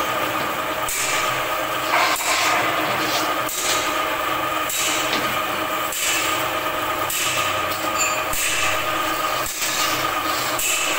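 Steady machine running with several held tones over a noisy hum, and a faint regular knock about once a second.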